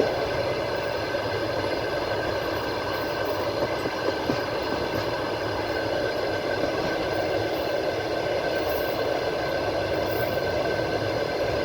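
Passenger train running on the rails, heard from inside the carriage: a steady rolling rumble with a constant high whine over it.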